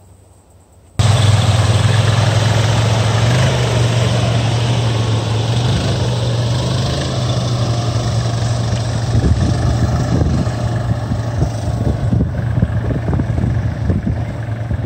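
A vehicle engine running with a steady low hum under a rushing noise, cutting in abruptly about a second in.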